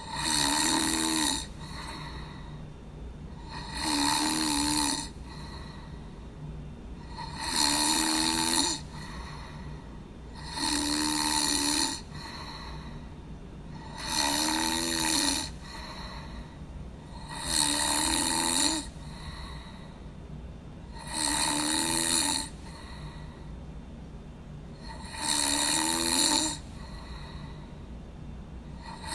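A person snoring: eight loud snores, one about every three and a half seconds, each lasting just over a second.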